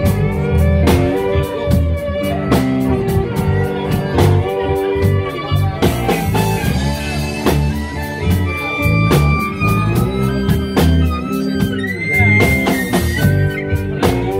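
Live blues band playing an instrumental break: a harmonica played through a handheld microphone carries the lead with held and bent notes over electric guitar, bass and drums keeping a steady beat.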